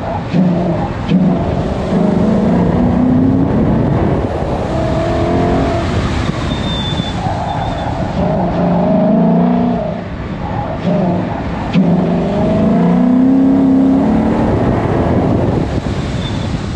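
2012 Ford Mustang's engine revving up and down again and again as the car is driven hard between cones, the pitch climbing and dropping every few seconds.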